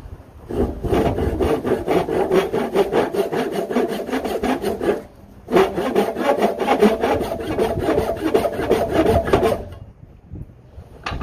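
Veritas crosscut back saw (16 teeth per inch) ripping along the grain of a board: quick, even push-pull strokes in two runs, with a short pause about five seconds in, stopping near the end.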